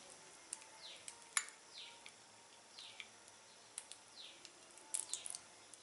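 A bird repeating a short falling call about once a second, with a few faint sharp clicks scattered between the calls.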